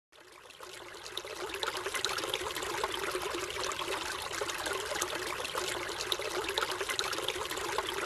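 A small stream trickling over rocks, a steady babble of water that fades in over the first second or so.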